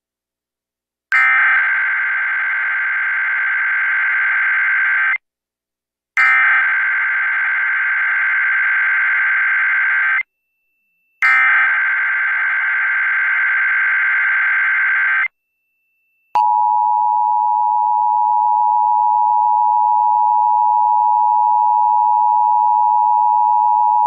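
Emergency Alert System signal for a Required Monthly Test: three bursts of SAME header data, each a harsh buzzing screech about four seconds long with a second's gap between them, then the steady two-tone attention signal starting about 16 seconds in.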